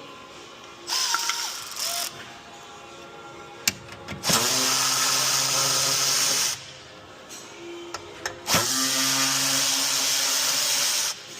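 Handheld power tool running in three bursts: a short one, then two of a couple of seconds each. Each starts with a quick drop in pitch, then holds a steady whine. It is spinning out fasteners while the engine's intake parts are being removed.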